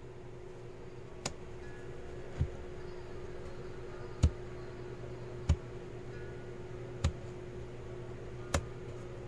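Comfort Zone CZ45E fan-forced electric space heater running with a steady hum, with six short clicks or knocks about every one and a half seconds. The owner calls the heater completely broken right out of the box.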